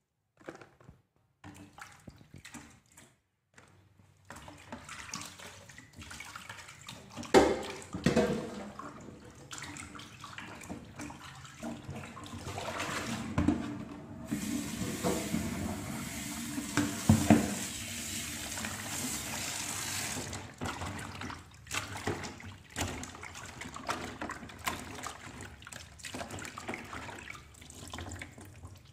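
Hands washing food in a plastic basin of water in a kitchen sink: irregular splashing and clatter, with a few sharp knocks. A tap runs for about six seconds around the middle.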